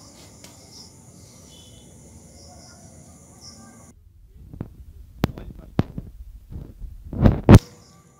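Crickets chirping faintly in the first half. Then comes a handful of sharp knocks and low thumps from the metal skewers of chicken over the charcoal being handled, the loudest near the end.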